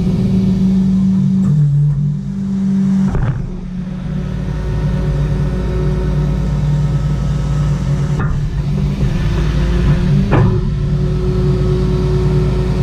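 A vehicle engine idling steadily close by. Its hum dips briefly in pitch about two seconds in, and three short knocks come over it at intervals.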